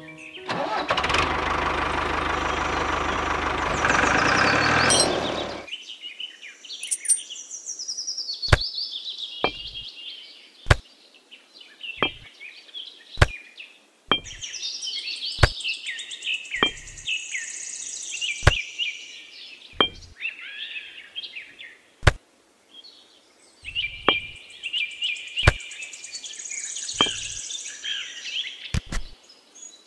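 Miniature clay bricks being set down one at a time on a wooden trolley bed: a sharp clack every second or few, some with a soft thud, over steady birdsong. A loud steady noise fills the first five seconds before the clacks begin.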